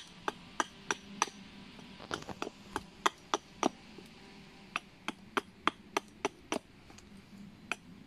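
Small axe chopping the end of a hazel leg held upright on a log: light wrist-action strokes, about three a second, in short runs with brief pauses. Each stroke shaves off the shoulders to taper the peg.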